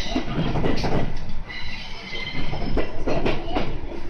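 Aoimori Railway 701-series electric train heard from inside the front car, rolling slowly over points and crossings: a running rumble broken by irregular clacks and knocks as the wheels cross the rail joints and frogs, with a faint wheel squeal on the curved turnouts about midway.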